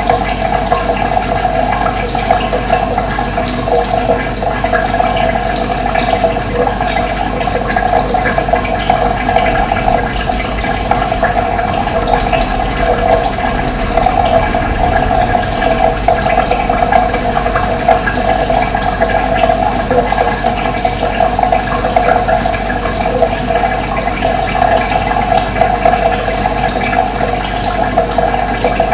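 Running water, a steady rushing flow that doesn't let up, with brief high chirps scattered through it that fit birdsong.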